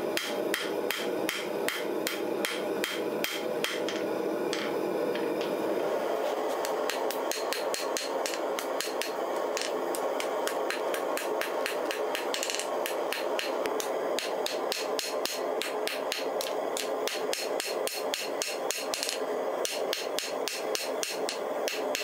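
Hand hammer striking red-hot steel on an anvil in a steady run of blows, about three a second at first and quickening to four or five a second about six seconds in, over a steady rushing noise. This is the forge-welding of a fluxed stack of high-carbon scissor blades into a solid billet.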